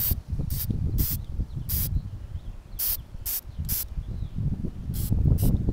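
Aerosol spray-paint can giving a series of short spritzes, about ten brief hisses at uneven intervals, over low wind rumble on the microphone.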